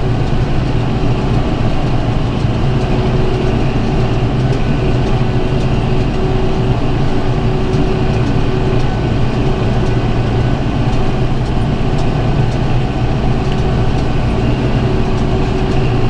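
Tractor engine running steadily, heard from inside the cab, while it pulls a PTO-driven round baler picking up a hay windrow.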